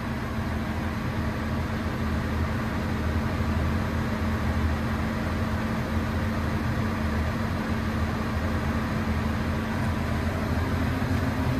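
Develon DX380 excavator's diesel engine running steadily at a high idle of about 1350 rpm.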